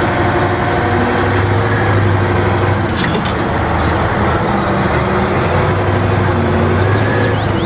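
Caterpillar 988B wheel loader's diesel engine running steadily under load as the machine drives with a marble block raised in its forks.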